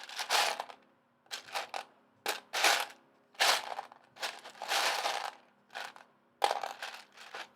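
Plastic Lego pieces being rummaged through and handled, in about six short bursts of rattling and rustling.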